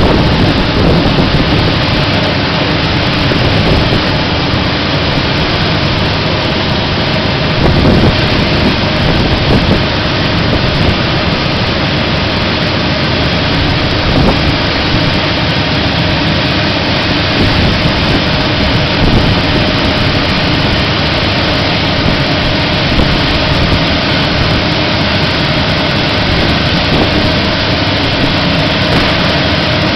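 Industrial vacuum hose sucking up steel grit from a steel tray: a loud, steady rushing noise of air and grit being drawn into the hose, with the vacuum machine running behind it.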